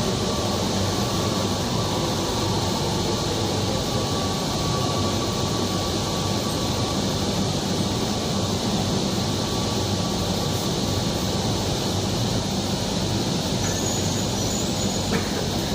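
Steady interior ambience of a Kochi Metro train car: an even hum of the car's air conditioning and running gear, with a faint high whine that fades out about eleven seconds in.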